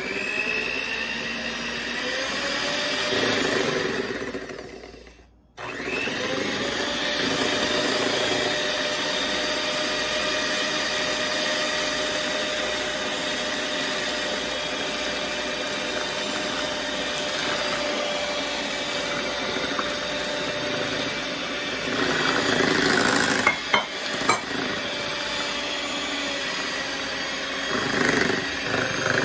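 Electric hand mixer running, its beaters whirring through banana bread batter as flour is mixed in. It stops for about a second around five seconds in, then runs steadily again, getting louder for a moment near the end.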